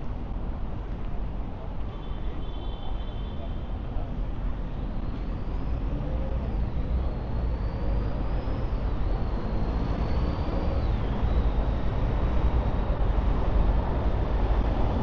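Road traffic rumbling steadily, growing louder over the last few seconds. A faint high whine rises and falls in the middle.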